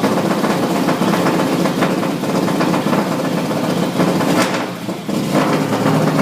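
Rally car engine running loudly close by, with a short drop in level about five seconds in.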